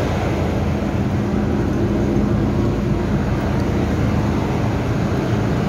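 Steady hum of an MTR M-Train standing at the platform with its doors open: a continuous low drone carrying a couple of faint steady tones.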